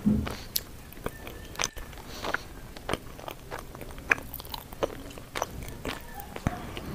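Close-miked chewing and biting: irregular crunches, clicks and wet mouth sounds of a person eating vegetables and rice. The sharpest pops come at the start and again about four seconds in.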